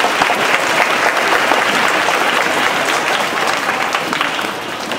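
An audience of schoolchildren and teachers clapping steadily in a hall as a warm welcome, fading slightly near the end.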